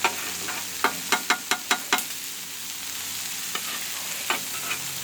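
Sirloin steaks and shrimp sizzling in butter on a Blackstone flat-top griddle: a steady frying hiss with sharp clicks, a quick run of them between about one and two seconds in and a few more later.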